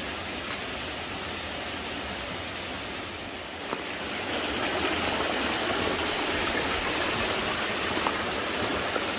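Steady rush of a shallow mountain stream flowing over rocks. About four seconds in the water becomes louder and fuller, with a few faint clicks over it.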